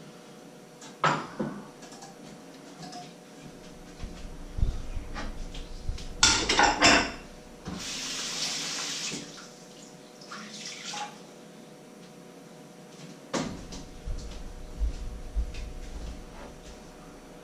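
Dishes and pans clattering as they are handled and set down, with a kitchen tap running into the sink for about a second and a half in the middle.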